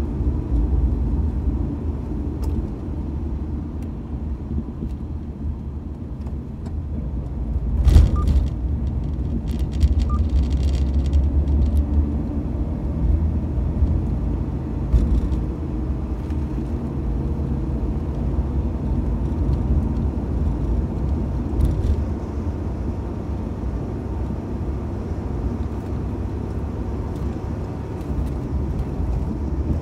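Mitsubishi Debonair being driven, a steady low engine and road rumble, with one sharp thump about eight seconds in.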